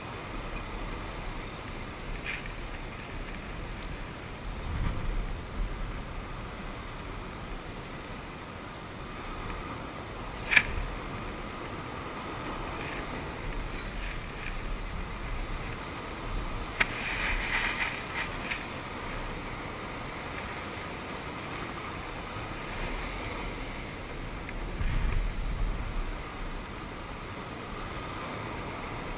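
Ocean sound: a steady wash of waves and wind, swelling a couple of times. A single sharp knock comes about ten seconds in, and a brief, brighter splash follows a few seconds later.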